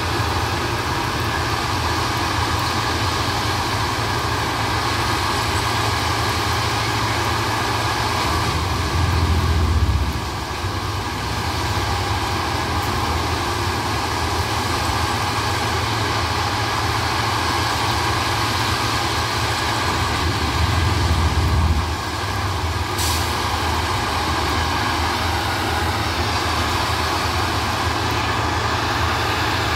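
Plasser & Theurer 09-32 ballast tamping machine working on the track, running steadily, with a deeper surge about every twelve seconds and a brief hiss about two-thirds of the way through.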